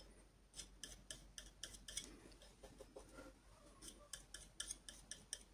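Small flat brush dabbing and stroking acrylic paint onto a canvas: faint, short scratchy taps in an irregular run, a few a second.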